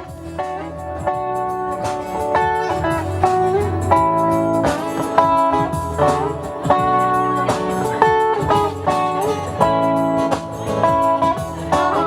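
Guitar played solo and instrumentally: a steady run of plucked notes and chords, with a few notes bent in pitch.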